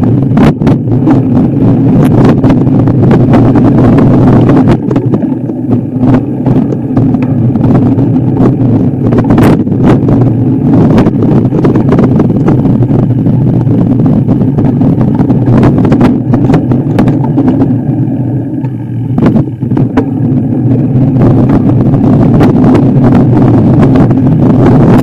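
Motor vehicle engine running hard, with many sharp knocks and rattles throughout. It eases off briefly about five seconds in and again near the end.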